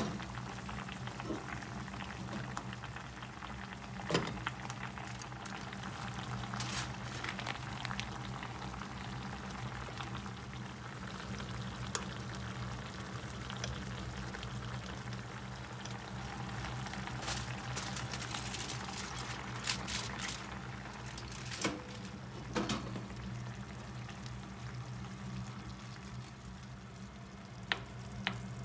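Daikon, fried tofu and pork simmering in broth in a frying pan, bubbling steadily, with scattered clinks and taps of a metal spoon and wooden utensil against the pan. A steady low hum runs underneath.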